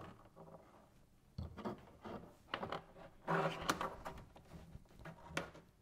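Faint handling noises: a few soft knocks and rustles, spaced irregularly, with the busiest stretch a little past halfway.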